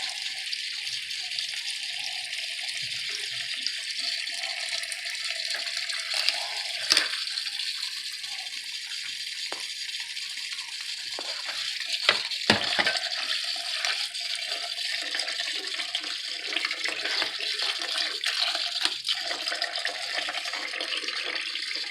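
Cold water running steadily from a kitchen tap into a bowl of broken dry spaghetti, filling it until the noodles are covered. A few brief knocks come about 7 and 12 seconds in.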